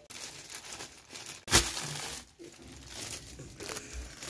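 Plastic bread bag crinkling as hands open it and reach in for the bread, with one sharper, louder crackle about one and a half seconds in.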